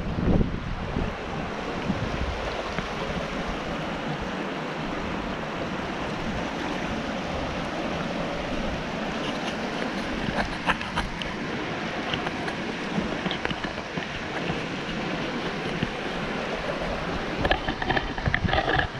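Steady rush of the Pedernales River flowing over limestone ledges and through rock channels, with wind buffeting the microphone. A few sharp clicks come about halfway through, and some brief louder sounds near the end.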